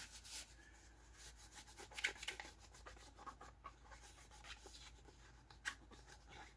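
Faint rubbing and scattered light clicks of hands handling small parts and tools, with a sharper click about two seconds in and another near the end.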